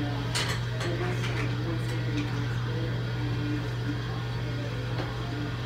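Steady low machine hum, with faint music playing in the background.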